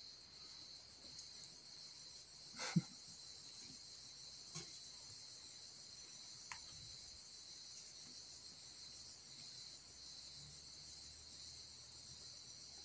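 A steady, high-pitched chorus of insects, with one sharp knock about three seconds in and a couple of fainter clicks after it.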